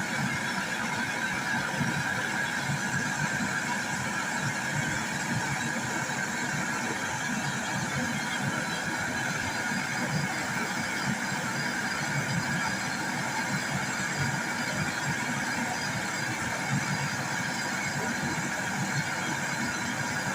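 A small motor running steadily with an even mechanical hum and no break or change in speed.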